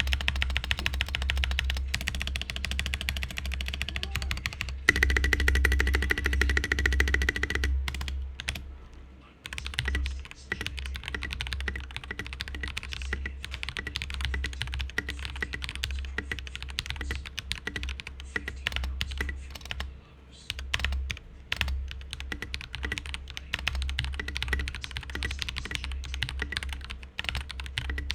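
Typing on a stock, unlubed Keycool KC84 mechanical keyboard: a continuous stream of keystroke clacks, with a faster, louder flurry about five seconds in and a brief lull near nine seconds. Its stabilizers are dry, which is said to make them rattle.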